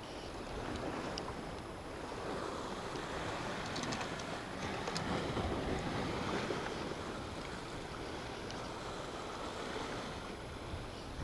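Sea surf washing against a rocky shore: a steady rush of waves that swells and eases, with a few light clicks about four to five seconds in.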